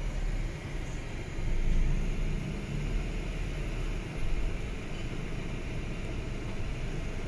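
Car running, heard from inside the cabin: a steady low rumble of engine and tyres.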